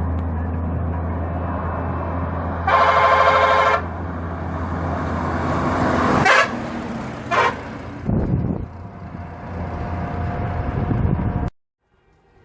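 Hino bus diesel engine running steadily, with a horn blast about a second long near three seconds in, the loudest sound. A couple of short knocks follow, and the sound cuts off suddenly near the end.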